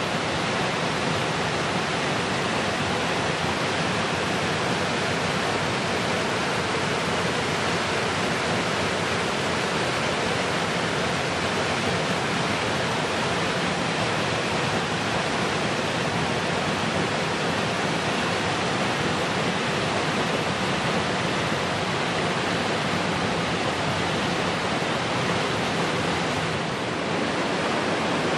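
Rocky Falls, a cascade of water tumbling over rhyolite rock ledges, making a steady, even rushing sound. It dips slightly about a second before the end.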